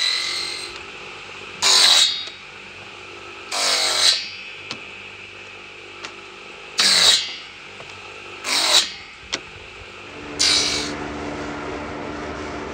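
Small bench circular saw running, with five loud bursts of about half a second each as its blade rips through thin wooden boards, and a few light clicks between cuts. Near the end the saw sound gives way to a steady low hum.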